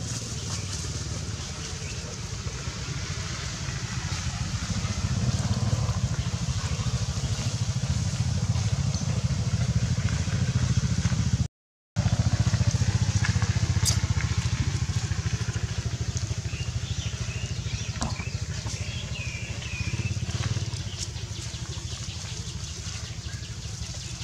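A steady low engine rumble, such as a motorbike running close by, swelling over the first several seconds and then slowly easing. It cuts out for a moment near the middle.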